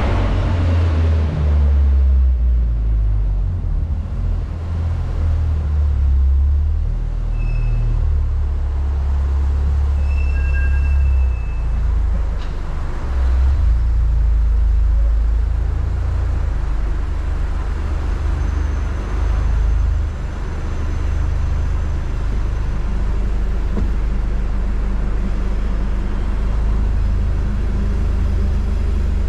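Turbocharged four-cylinder engine of a Mk6 Volkswagen Golf R running at low revs with a steady deep exhaust rumble.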